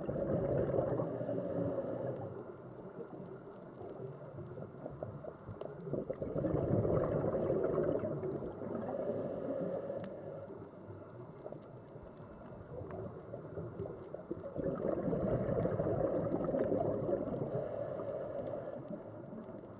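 Scuba diver's breathing heard underwater: exhaled bubbles gurgling in swells about every eight seconds, with a short hiss in each cycle.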